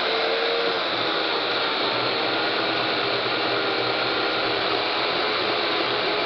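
Chainsaw running steadily at full speed while cutting through a thick, tough log.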